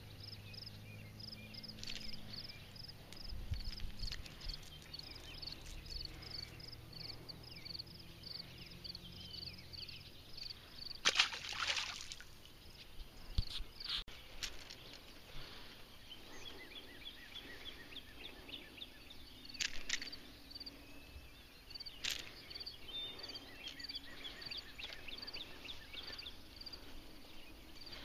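Outdoor ambience by the water: a high, thin chirp repeated evenly a few times a second, dropping out midway and returning near the end, with some softer chipping calls. Several short, sharp rustling bursts break in, the loudest about 11 seconds in.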